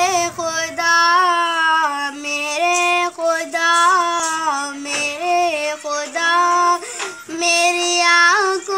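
A boy singing a naat, an Urdu devotional song in praise of the Prophet, solo in a high voice with long held notes that glide from one pitch to the next.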